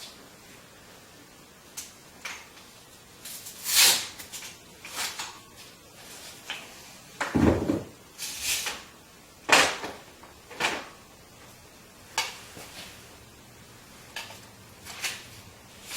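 Irregular handling noises on a bicycle: scattered clicks, knocks and rustles of parts being fitted and moved, with one dull thump about halfway through.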